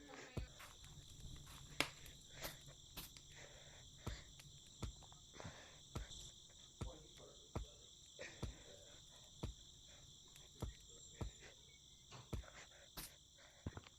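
Faint, steady high-pitched insect chorus, with soft knocks about every second and a few faint breaths.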